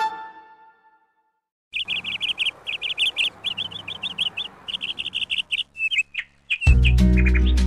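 A small songbird chirping in quick runs of high notes for about five seconds. Music fades out at the start and starts again near the end.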